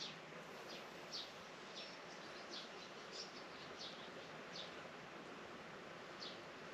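A small bird calling repeatedly: short high chirps, about one every half second to a second, with a longer pause before the last one. A steady outdoor hiss of rural ambience runs underneath.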